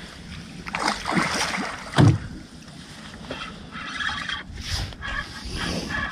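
Water splashing and sloshing against a small boat's hull as a hooked pike is played close alongside, with one heavy thump about two seconds in.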